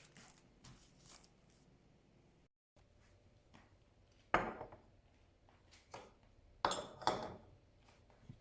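A few sharp knocks of hard objects handled and set down, the loudest about four seconds in and two more close together near seven seconds, each ringing briefly.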